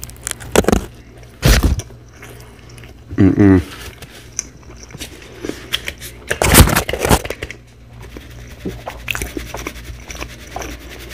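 Close-up mouth sounds of a person drinking a slushie: sips and swallows with scattered small clicks. There is a brief low hum about three seconds in and a loud noisy burst about six and a half seconds in.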